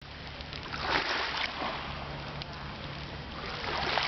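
Small sea waves washing in on the shore, one surge about a second in and another near the end, over a low steady hum.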